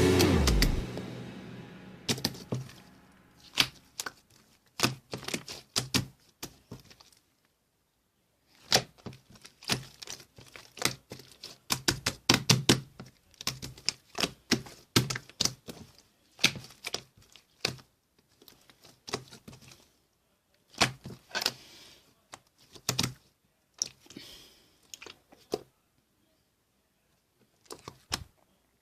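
Slime being pressed and worked by hand, giving irregular clusters of sharp clicks and pops with short silent gaps between. Background music fades out over the first second or two.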